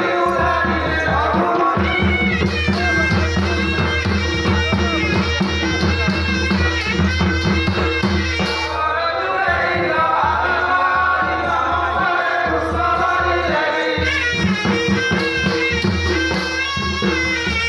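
Odia Danda Nacha folk song: voices singing melodic phrases into microphones over a steady beat from large two-headed barrel drums (dhol).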